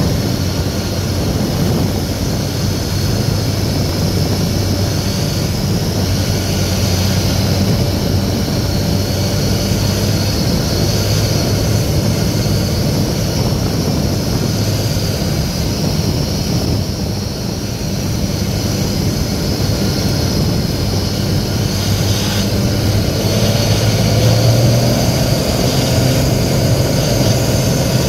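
Cessna 182's piston engine and propeller heard from inside the cabin on final approach, a steady drone. It dips briefly a little past the middle, then the engine note rises slightly and gets louder about three-quarters of the way through.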